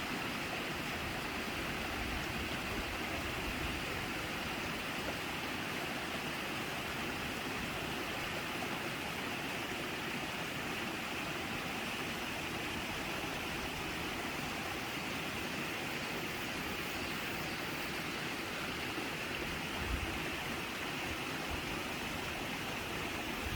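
Mountain stream water rushing over rocks, a steady, even rush. A brief low thump about twenty seconds in.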